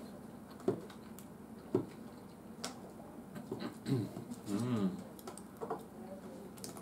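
Eating at close range: a few sharp clicks and scrapes of a metal fork in an aluminium foil takeaway tray, with chewing, and a brief wordless voiced sound from the eater about four seconds in.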